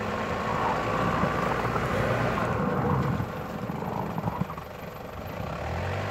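Toyota Land Cruiser Prado engine running hard under load as the SUV crawls up a snowy, muddy rut and struggles for grip, the revs easing off briefly about halfway through.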